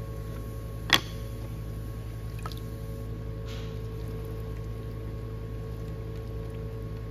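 Electric pottery wheel running with a steady hum while wet clay squishes and slurps under the hands. A single sharp click about a second in, and a fainter tick a moment later.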